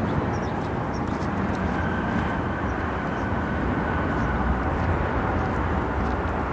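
Jet airliner engines running with a steady rumble, and a faint high whine held at one pitch that joins about two seconds in.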